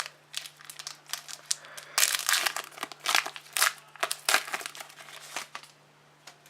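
Trading card pack wrapper being torn open and crinkled by hand: a run of crackly crinkles, loudest in the middle, that stops about five and a half seconds in.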